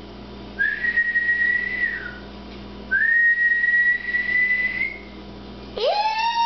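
A person whistling two long, steady, high notes, each lasting about one and a half to two seconds and bending slightly up before dropping off at the end, to catch a puppy's attention. Near the end a lower, held, voice-like tone with overtones begins.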